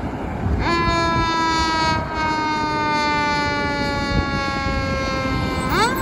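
Fire engine siren coming on about two-thirds of a second in, its pitch sliding slowly down for several seconds, then sweeping sharply back up near the end. Traffic noise runs underneath.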